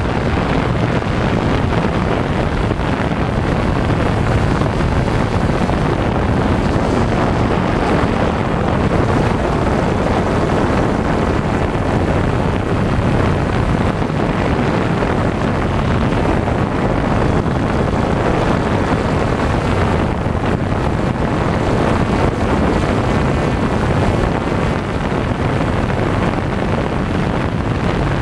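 Steady whirring rush of a camera drone's propellers and motors picked up by the onboard camera's microphone, mixed with wind noise on the mic. It is loud and unbroken.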